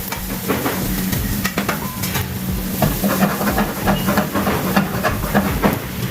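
Chicken pieces frying in hot oil, sizzling steadily. Sharp clicks and knocks are scattered throughout.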